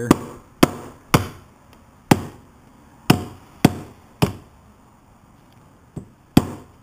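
Rubber mallet striking the front fork of an ATV: about eight sharp blows with short rings, irregularly spaced, with a pause of about two seconds before the last one. The blows are knocking seized fork tubes loose so they can be driven out of their clamps.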